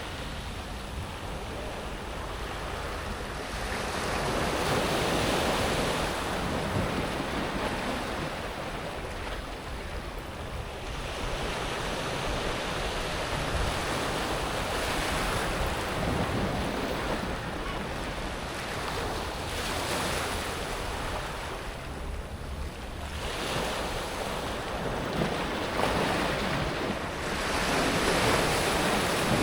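Gentle sea waves breaking on a beach of smooth pebbles and washing back over the stones, rising and falling in slow surges every several seconds.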